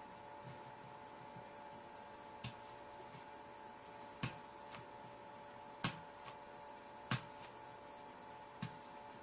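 Sharp clicks, about five of them one to two seconds apart, from long fingernails digging into and tapping the hard skin of a green apple, over a steady electrical hum.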